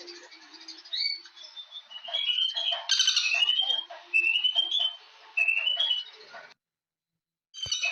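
Birdsong: short whistled phrases, each rising in a quick run of notes, repeated every second or so with chirps in between. About six and a half seconds in, the sound cuts out completely for about a second, then returns with a click.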